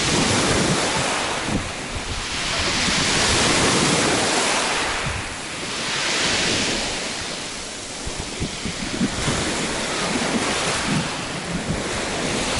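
Small sea waves breaking and washing up a pebble beach, the surf surging and ebbing about every three seconds, with wind buffeting the microphone in short low thumps, most often in the second half.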